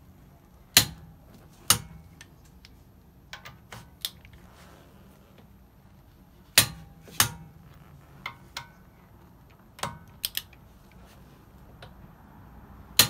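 Click-type torque wrench clicking as each Tesla Model 3 lug nut reaches the set torque of 129 lb-ft (175 Nm); each click means that nut is fully tightened. Sharp clicks come mostly in pairs, about a second in, around six to seven seconds in, near ten seconds and near the end, with fainter knocks of the socket and wrench between.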